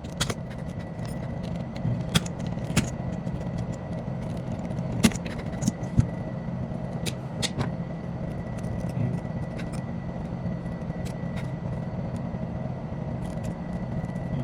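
Steady low mechanical hum with a faint high steady whine, and scattered light clicks and taps, the sharpest about five and six seconds in.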